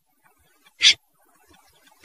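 A snipe's short, harsh call, given once about a second in as part of a series that repeats about once a second: a lure call played to draw snipe in.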